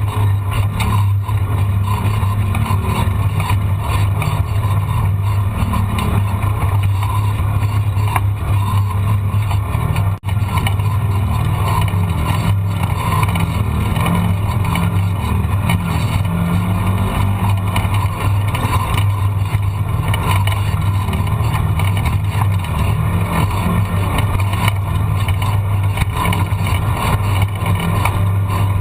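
A motor vehicle engine drones at a steady speed, with no revving. There is a very brief dropout about ten seconds in.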